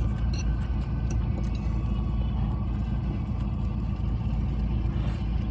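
Truck engine running, heard inside the cab as a steady low rumble, with a few faint clicks over it.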